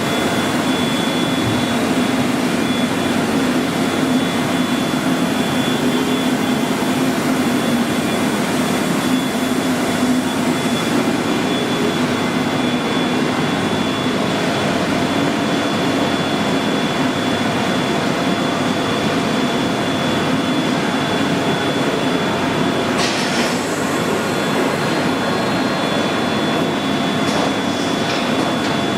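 Union CBFT 105 table-type horizontal boring and milling machine running under power: a steady mechanical hum with a constant high whine over it. Short spells of brighter hissing noise come in about three-quarters of the way through.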